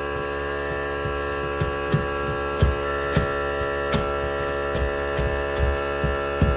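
Air compressor running with a steady, many-toned hum, with short low knocks coming at irregular intervals about every half second.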